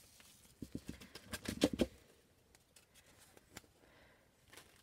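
Thin plastic silkscreen transfer being peeled off a chalk-painted board: a short flurry of crackly rustling and clicks about a second in, then a few faint ticks of handling.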